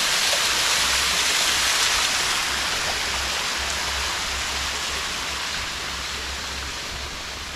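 Water from a small waterfall splashing down a wet rock face, a steady hiss that slowly fades.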